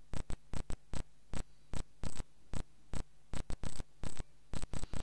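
Irregular sharp clicks, about four a second, like static crackle, over a steady low hum.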